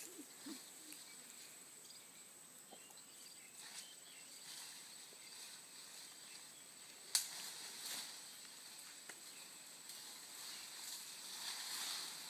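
Faint outdoor ambience of insects chirring steadily at a high pitch, with a single sharp crack about seven seconds in and light rustling.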